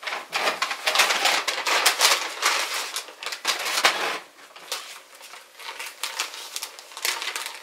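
Clear plastic zip-top bag crinkling loudly as it is handled, for about four seconds, then quieter, scattered crinkles as its top is pulled open.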